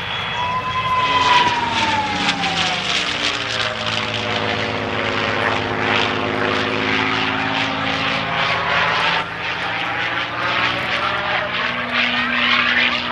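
North American P-51D Mustang's Packard Merlin V-12 engine and propeller passing low overhead. A high howl falls in pitch as it goes over, about a second in, followed by the engine's steady drone as the plane banks away.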